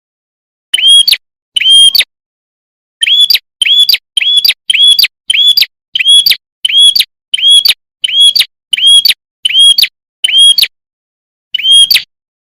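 Prenjak kepala merah lure call: a loud, short, high chirp repeated about twice a second in runs, with a pause of about a second after the first two notes and another near the end.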